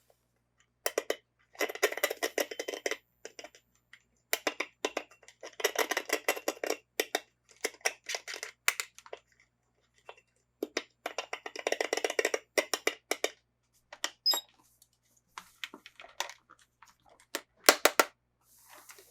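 Plastic toy packaging being handled and opened: bursts of rapid crinkling and crackling mixed with sharp clicks, coming in several bouts with silent gaps between.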